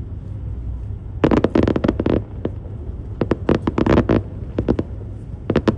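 Fireworks going off in rapid crackling volleys, four clusters of sharp cracks over a steady low rumble.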